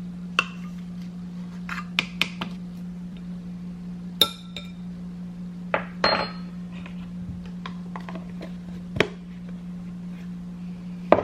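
Kitchen dishes, glassware and utensils clinking and knocking as they are handled, in about eight separate knocks. The one about four seconds in rings briefly like a glass or metal bowl. A steady low hum runs underneath.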